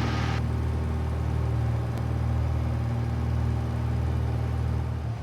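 1965 Cessna 172G's Continental O-300 six-cylinder engine and propeller at full power on the climb-out after a touch-and-go, a steady low drone.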